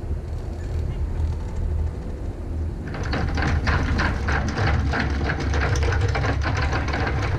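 A low steady engine rumble. From about three seconds in it is joined by a rapid, continuous clatter of anchor chain running in over the bow roller and windlass as the anchor is hauled up.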